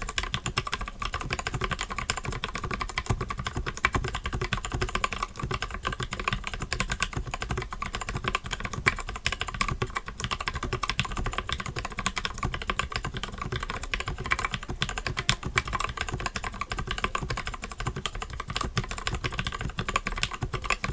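Continuous fast typing on a mechanical keyboard with a 3D-printed PLA case and plate and Akko pink switches lubed with 205g0: a dense, steady run of key clacks.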